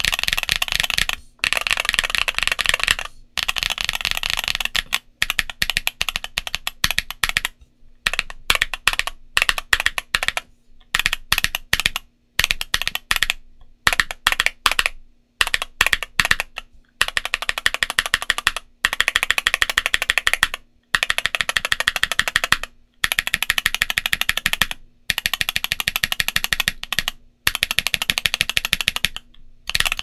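Typing on an Ajazz AC067 mechanical keyboard with MMD Princess Tactile 60 g switches and SA-profile ABS keycaps: rapid keystrokes in runs of one to two seconds, broken by short pauses.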